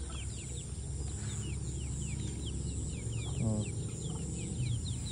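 Chickens, with a steady stream of short, falling high cheeps of the kind young chicks make, several a second and overlapping. There is a brief lower call about three and a half seconds in.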